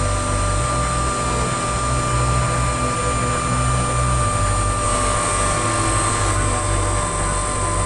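Steady high motor whine from a machine, heard over background music with long, sustained low notes that change every few seconds.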